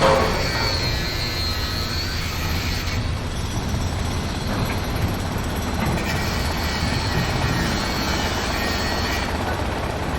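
Heavy construction machinery running steadily: a continuous low engine rumble with a faint, wavering high whine above it. A single sharp knock at the very start.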